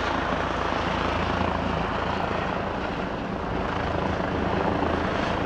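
Rescue helicopter circling overhead, its rotor and engine a steady drone.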